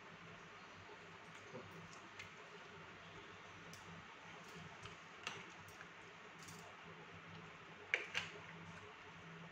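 Quiet room with a low steady hum, broken by a few faint clicks and taps as a plastic water bottle is handled. The sharpest pair of clicks comes about eight seconds in.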